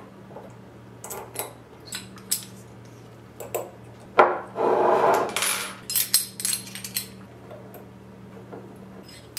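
Small metal clicks and taps of a hex key and M3 bolts being driven to fix stepper motors onto their mounting plates, with a louder clatter lasting about a second a little over four seconds in.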